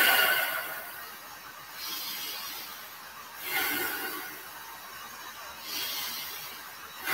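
A person breathing audibly in and out during a held yoga pose, slow and even, about one breath every two seconds.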